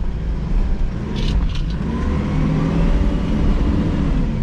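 Mitsubishi L200 Triton pickup's engine pulling under load up a steep dirt climb in four-wheel drive, the revs rising about a second and a half in and easing off near the end. A few sharp clicks come through about a second in.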